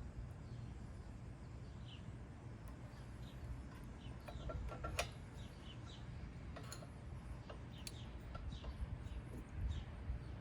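A few light clicks and clinks of hand work on the mower's engine as the ignition coil wire is plugged back in and the coil is positioned, with faint bird chirps in the background.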